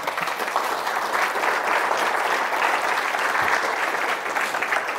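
Audience applauding: dense, steady clapping from a lecture-hall crowd.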